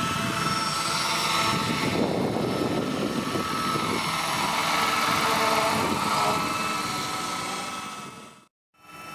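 Electric RC scale helicopter (Vario Jet Ranger) in flight: steady motor whine and rotor noise with several held tones, fading near the end and cutting out for a moment before returning.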